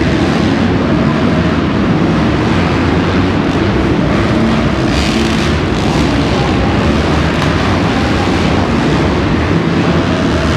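Several motocross bikes racing around an indoor dirt track, their engines blending into a loud, steady drone that fills the arena hall.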